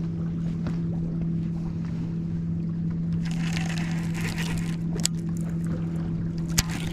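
Steady hum from a bass boat's bow-mounted trolling motor. About three seconds in, a baitcasting reel is cranked for a second or so, and a couple of sharp clicks come near the end.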